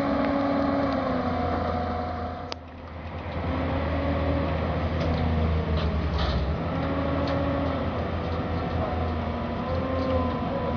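Engines of heavy machinery running steadily, their pitch wavering slightly. The sound dips briefly with a sharp click about two and a half seconds in.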